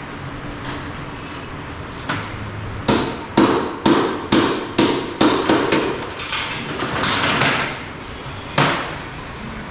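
A run of sharp knocks, about ten in three seconds, then a short hiss and one more knock.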